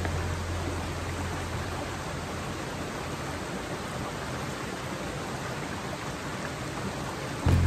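Shallow rocky creek flowing over stones, a steady even rush of water. Background music cuts in right at the very end.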